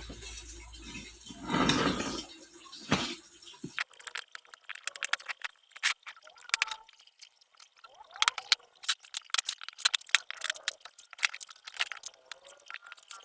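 A parcel being opened and its packaging handled by hand: a short rustling burst about two seconds in, then a long run of irregular crinkles and clicks of plastic and cardboard.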